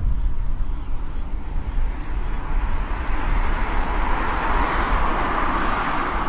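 Noise of a passing vehicle, swelling over a few seconds and easing off near the end, over a low rumble of wind on the microphone.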